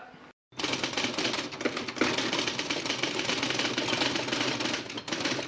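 Rapid typewriter clacking, a dense run of keystrokes that starts and stops abruptly and lasts about five seconds.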